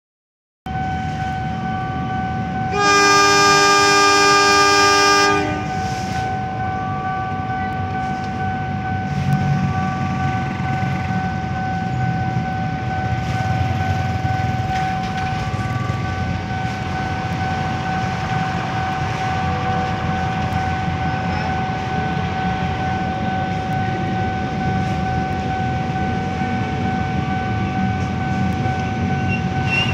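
Diesel locomotive horn sounding one loud blast of about two and a half seconds, starting about three seconds in, as the train departs. After it comes the low rumble of the locomotive's diesel engine, with a steady high tone underneath.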